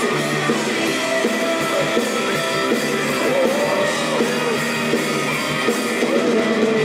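Live pop-rock band playing, with guitars prominent.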